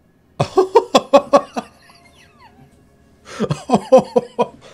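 A man laughing in two bouts of rapid, pulsing 'ha-ha' bursts, the first about half a second in and the second just past three seconds.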